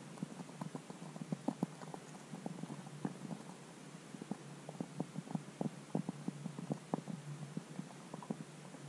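Muffled underwater sound through a submerged camera's housing: a low steady hum with many irregular soft knocks and pops, several a second.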